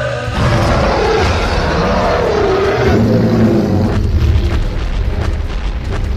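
A loud cartoon monster growl sound effect, deep and rumbling with a wavering pitch, rising suddenly at the start. A noisy hiss runs over it for the first three seconds.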